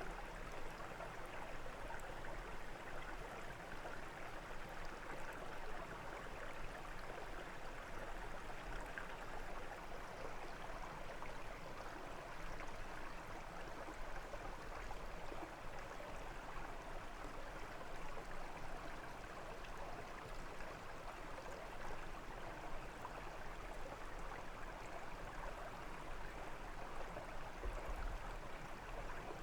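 Water of a small brook running steadily, an even rush and babble with no breaks.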